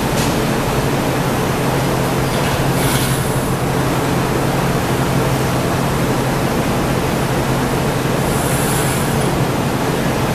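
Gas-fired glory hole and studio furnaces running with a steady, even noise and a low hum, while a goblet is reheated at the glory hole. Two short hisses sound, about three seconds in and again near nine seconds.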